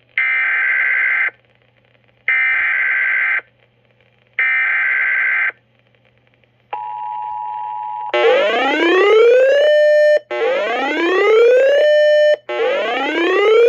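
Emergency Alert System header on FM radio: three one-second bursts of buzzing digital data tones. A steady two-pitch attention tone follows, then gives way about eight seconds in to a rising, whooping alarm tone that repeats about every two seconds, signalling a severe thunderstorm warning.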